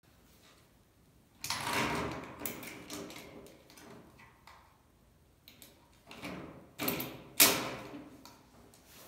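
A series of handling knocks, bangs and scrapes. The loudest comes about seven and a half seconds in, with another strong bang about a second and a half in.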